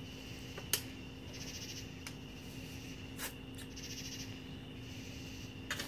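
Night insects chirping in pulsed trains over a faint steady hum, with three sharp clicks spaced about two and a half seconds apart.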